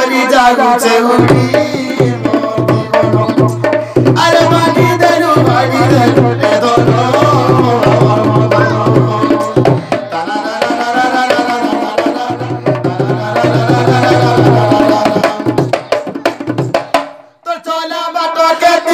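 A small mouth organ plays a wavering folk melody over a rope-tensioned two-headed barrel drum (dholak) struck with both hands. The music drops out briefly a little before the end, then picks up again.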